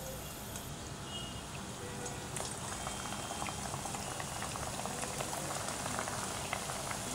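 Hot oil bubbling and sizzling around a badusha dough disc as it deep-fries, a steady hiss full of fine crackles that grow denser about two and a half seconds in.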